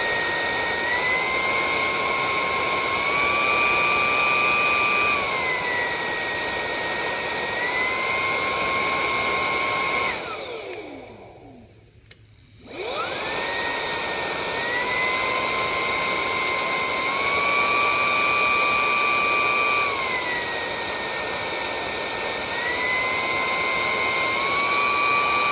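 Meco Eleverde handheld brushless car vacuum's motor running with a high whine, its pitch stepping up and down as it is switched between its three speeds. About ten seconds in it is switched off and winds down, and it starts again about two seconds later and steps through the speeds once more.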